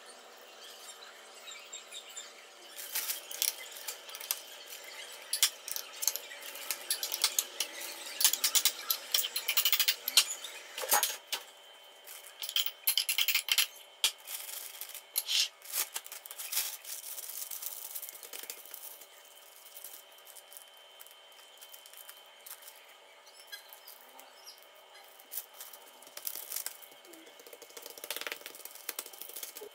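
Irregular clicks, crackles and light knocks of hands handling food and kitchen items, busiest in the first half and thinning out later, over a faint steady hum.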